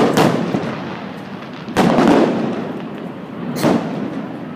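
Aerial firework shells bursting: three booms about 1.8 seconds apart, each followed by a long rumbling echo, the third a little weaker.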